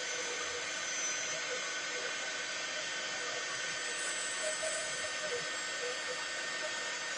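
Embossing heat gun running steadily: a constant blowing hiss with a faint steady whine. It is blowing hot air onto stamped lettering to melt the embossing powder.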